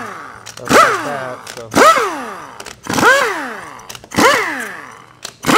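Pneumatic wrench spinning out the valve-body bolts on a Ford 4R70W transmission in five short bursts about a second apart. Each burst starts sharply and winds down in pitch as the trigger is released.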